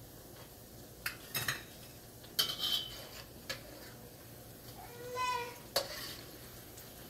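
Metal spatula knocking and scraping against a wok as bread slices are turned in hot oil, over a faint sizzle of frying. A short high-pitched squeal comes about five seconds in.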